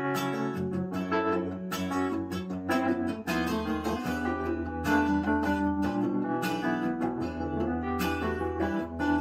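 Recorded music, plucked acoustic guitar over a deep bass line, played back through Silverline Sonata MKII loudspeakers driven by a Luxman L-590AXII amplifier, heard in the listening room.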